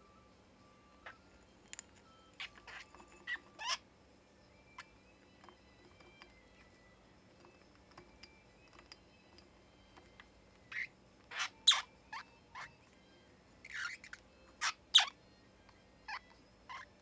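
Budgerigar sneezing: a scatter of short, sharp bursts, the loudest in two clusters in the second half, with faint soft chirps in between. Sneezing like this in a budgie is a sign of possible illness.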